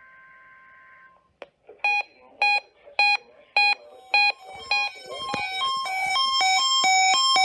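A steady weather-radio warning alarm tone cuts off about a second in. Then weather alert radios set off their own alarms: sharp beeps about twice a second, giving way to a fast alternating two-tone alarm that keeps getting louder.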